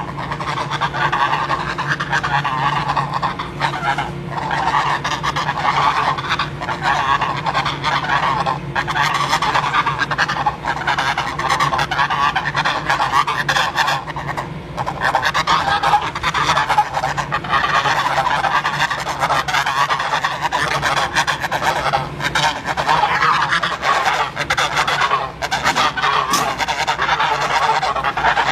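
Many geese honking at once, their calls overlapping in a continuous, unbroken clamour.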